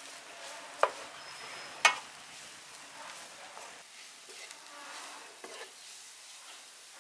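Wooden spatula stirring and tossing fried noodles with egg in a nonstick frying pan, scraping and rustling over a light sizzle. Twice near the start, about a second apart, the spatula knocks sharply against the pan.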